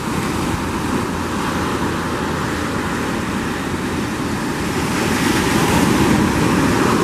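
Ocean surf: waves washing up and breaking on a sandy beach, swelling a little louder about five seconds in.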